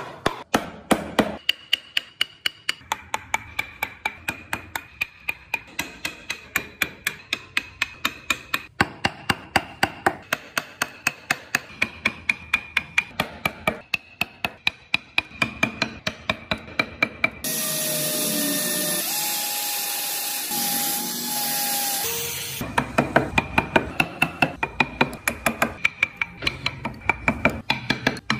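Wooden mallet tapping a carving chisel into hardwood, sharp wooden knocks about three times a second. About two-thirds of the way through, the tapping stops for about five seconds while a small power tool runs steadily, then the tapping resumes.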